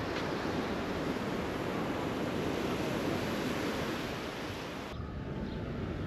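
Sea surf washing onto a beach, with wind buffeting the microphone. About five seconds in, the high hiss drops away abruptly.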